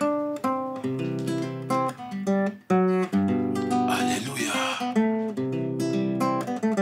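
Acoustic guitar playing a run of quick plucked and strummed notes. About four seconds in, a voice calls "Aleluia".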